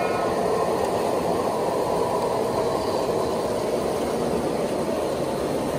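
Three-rail tinplate model train running along tubular track: a steady rumble of its motor and metal wheels on the rails.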